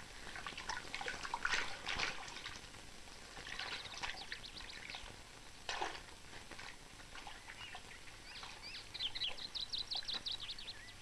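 Birds singing in woodland, with a quick chirping series about four seconds in and a rising, repeated trill near the end, over a trickle of water. A few short scrapes from a spade digging in a muddy ditch come about a second and a half in and again around six seconds.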